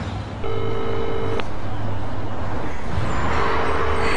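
A telephone ringing tone on the line: two rings of a steady low two-note tone, each about a second long and about two seconds apart, over a steady low hum.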